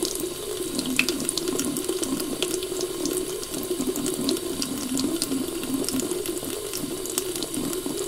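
Bathroom faucet running steadily, water pouring into a filling basin with light splashes.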